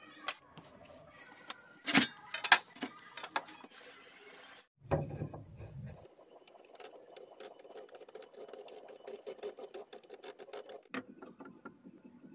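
Workshop handling sounds of marking out: sharp taps and knocks of a steel rule and pencil on plywood, then several seconds of rapid fine scratching and ticking as a pen draws a circle on the end grain of a wooden dowel.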